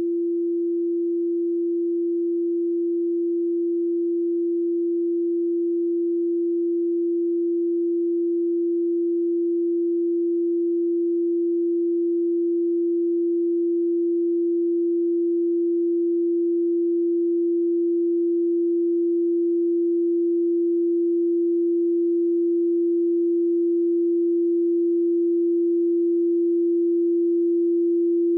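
A single pure sine tone at 341.3 Hz from a frequency generator, held perfectly steady in pitch and very slowly growing louder. It is the tone set for the Anahata, the fourth (heart) chakra, in a meditation video.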